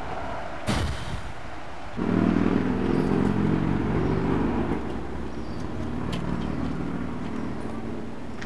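A motor vehicle engine running, cutting in abruptly about two seconds in with a steady low sound that slowly fades away. A sharp click comes just before it.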